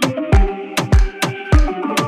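Background music with a steady beat: deep kick drums that drop in pitch, sharp high percussion hits and a repeating melody.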